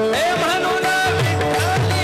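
Marathi kirtan devotional music: a voice singing a wavering, ornamented melody over a held harmonium-like drone, with a hand drum keeping a steady beat.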